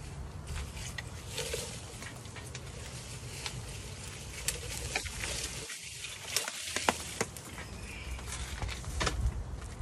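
Handling noise: scattered irregular clicks and rustles over a low rumble, as the camera is moved and fixed in place.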